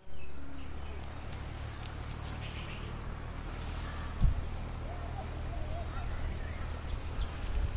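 Wind buffeting the microphone as a steady low rumble, with a single thump about four seconds in and a faint wavering call a second later.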